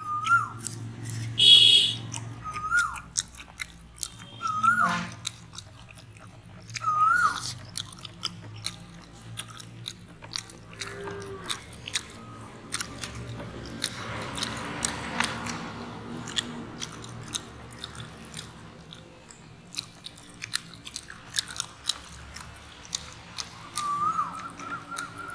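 Close-up eating sounds from people chewing and smacking on masala-fried whole fish eaten by hand, with many wet clicks and some crunching. A short rising-and-falling whistled note sounds several times in the first few seconds and again near the end.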